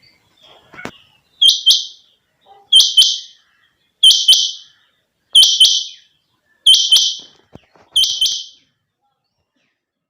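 A captive quail (batair) calling loudly: six quick two-note calls, about one every 1.3 seconds, with a short pause after the last.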